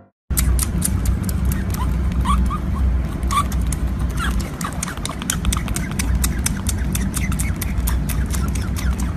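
Baby otter suckling from a milk bottle: rapid wet clicks of its mouth on the teat over a low rumble, with a few short rising squeaks about two to three seconds in.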